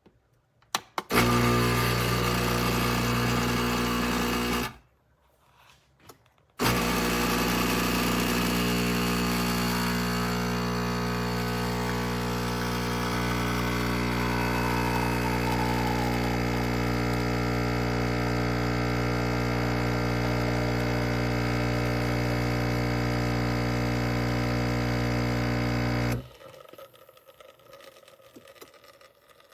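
Empstorm 20-bar espresso machine's pump running with a steady buzzing hum as it pushes water through. It runs for about three and a half seconds, stops, then starts again and runs for about twenty seconds before cutting off suddenly.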